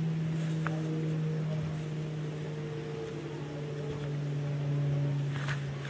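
Steady engine drone: a low hum with a few overtones, its pitch sinking slightly near the end. A brief high tick sounds under a second in.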